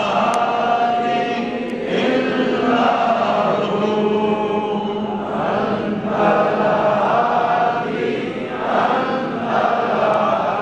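Men's voices chanting together in repeated phrases of a second or two, over a steady held low note.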